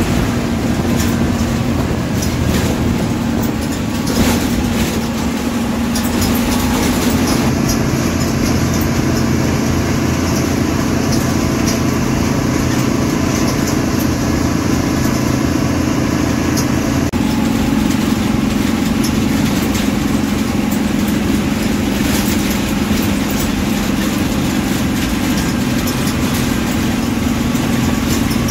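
MSRTC bus diesel engine running steadily as the bus travels, heard from inside the cabin. The engine note shifts slightly about seven and seventeen seconds in.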